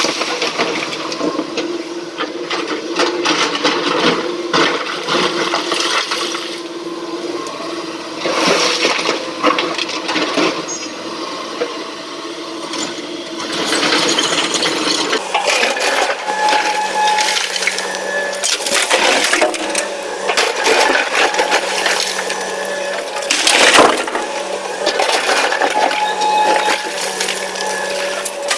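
SANY SY225 excavator running while rock and stone clatter and crash into a steel tipper truck body. The engine note changes about halfway through, and a loud spill of rock comes near the end.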